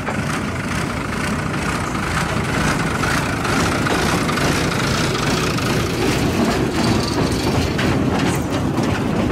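Diesel locomotive of a slow tourist train running as it passes, followed by its open passenger carriages rolling by, with steady rumble and short clicks from the wheels on the rails.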